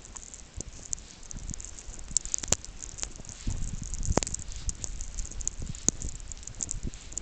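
Footsteps crunching through snow in an irregular pattern, with many small ticks and two sharp clicks.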